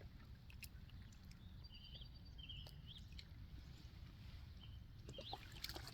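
Faint songbird chirps, a few short calls about two seconds in and another near the end, over a low steady rumble of wind on the microphone.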